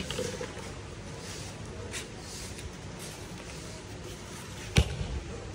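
A hammer strikes a red plastic wiper clamp lying on a concrete floor in a strength test, with one hard blow near the end.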